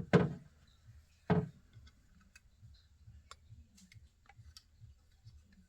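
Knocks and light clicks from an air horn and its mounting parts being handled and positioned. Two louder knocks come in the first second and a half, then scattered soft ticks.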